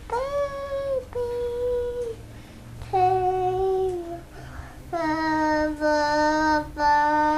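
A young child singing a few long drawn-out notes, each lower than the last, the final low note held for over two seconds.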